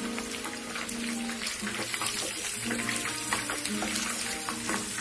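Pre-boiled fish pieces shallow-frying in hot oil in a pan: a steady sizzle full of small crackles and pops. Background music plays over it.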